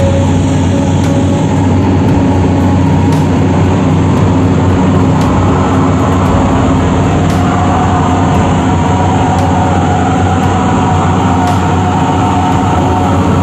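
Excavator's diesel engine running steadily under load, a loud continuous drone.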